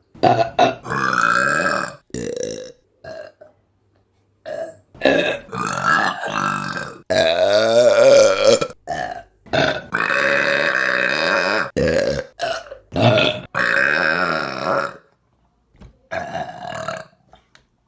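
Women burping one after another in quick succession, with short burps between several long drawn-out ones of one to two seconds each, separated by abrupt cuts and brief silences.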